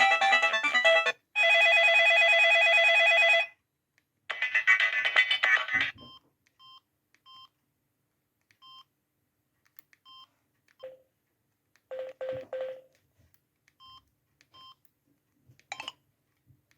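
Samsung SGH-C130 mobile phone ringtones and alert tones played one after another. A polyphonic melody ends about a second in and is followed by a dense pulsed tone lasting about two seconds, then a short melody. After that come a sparse run of brief high beeps and a few short chimes.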